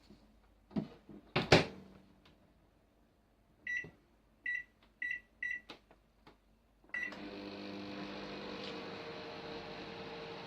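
Microwave oven: two knocks, then five short beeps from the keypad as it is set, and about seven seconds in the oven starts running with a steady hum.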